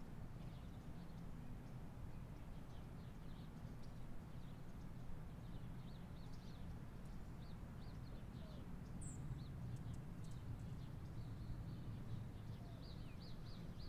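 Faint outdoor ambience: small birds chirping in short, high, quick calls over a low, steady rumble, with clusters of chirps around the middle and near the end.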